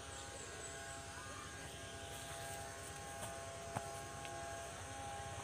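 Steady mechanical hum made of several held tones over a low rumble, with one sharp click about two-thirds of the way in.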